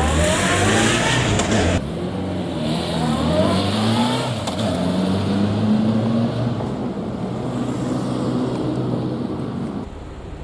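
A vehicle engine accelerating through the gears, its pitch rising several times with drops between shifts.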